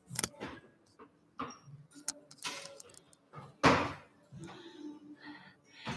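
Scattered knocks, clacks and rattles of Pilates reformer equipment being set up: springs switched, headrests lowered and straps handled. The loudest clatter comes just under four seconds in, with faint voices murmuring in the room.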